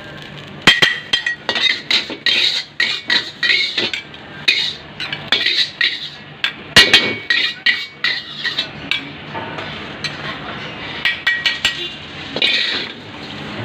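Metal spatula clanging and scraping against a wok in quick, irregular strikes as fried rice is stir-fried, with a steady low hum underneath.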